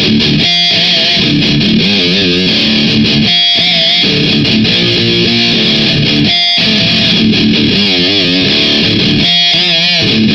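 Heavily distorted electric guitar through an amp head and half-stack cabinet playing a repeating metal riff, broken by short stops about every three seconds, with held notes wavering in vibrato.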